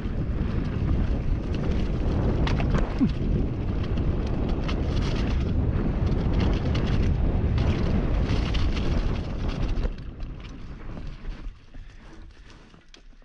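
Mountain bike descending a rough dirt trail: wind buffeting the microphone over tyre rumble, with many sharp clicks and rattles from the bike over bumps. The noise falls away about ten seconds in and fades out at the end.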